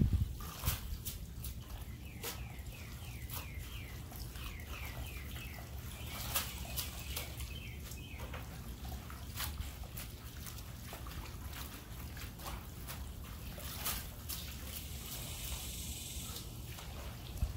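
Water from a garden hose trickling and splashing onto leafy greens in a disposable aluminium tray as they are rinsed by hand, with irregular small splashes and clicks.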